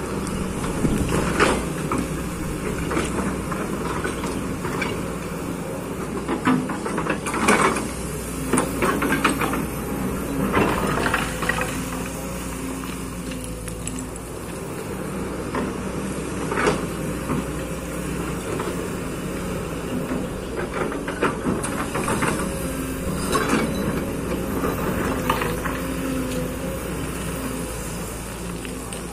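Kobelco hydraulic excavator's diesel engine running steadily, with short clanks and rattles every few seconds as it works.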